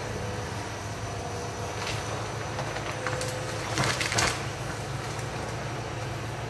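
Hitachi EX200 excavator's diesel engine running steadily while the machine breaks through forest timber: wood cracks and splinters a couple of times, then snaps in a louder burst of cracking about four seconds in.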